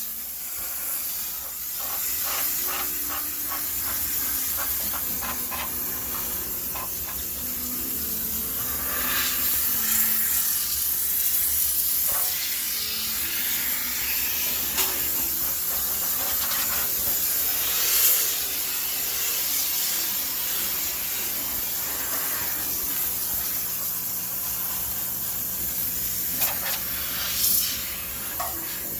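High-pressure steam cleaner jetting steam with a steady hiss, with a few short knocks and clatters over the top.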